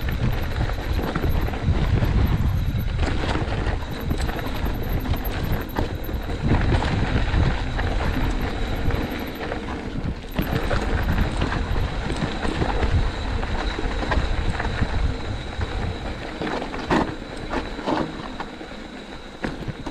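Wind rushing over the microphone with a heavy low rumble, and scattered rattles and knocks of a mountain bike ridden over rough trail.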